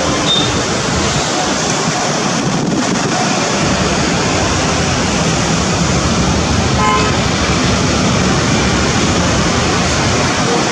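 ATR 72 twin-turboprop airliner on final approach: a loud, steady rush of engine and propeller noise with a faint low hum, and a short horn-like toot about 7 seconds in.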